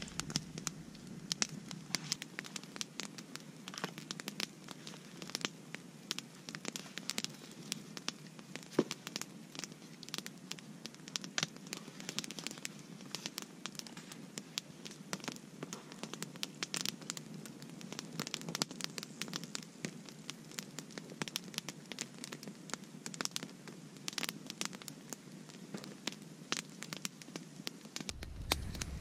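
Wood campfire crackling, with frequent sharp pops and snaps over a steady low hiss.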